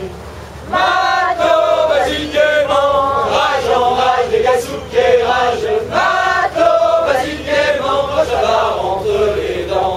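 A tall ship's crew singing a chant together, with male voices loudest, in long held notes that come in under a second in.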